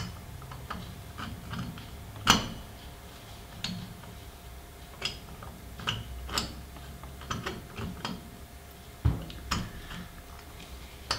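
Irregular light metal clicks and knocks as the cylinder of an 80cc two-stroke bicycle engine is worked down over its studs and piston by hand. The sharpest knock comes a little over two seconds in.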